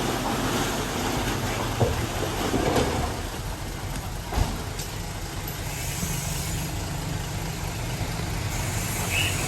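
Heavy diesel engine of earthmoving machinery running steadily, with two short knocks, about two seconds in and just past four seconds.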